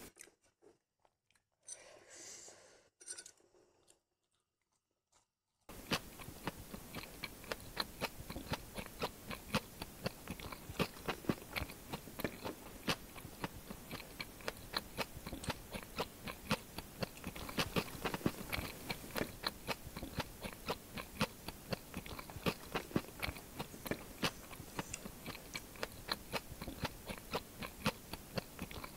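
Near silence for about the first five seconds, then close-miked chewing of luchi (fried puffed bread) dipped in ghugni, a dense run of small quick clicks and crunches.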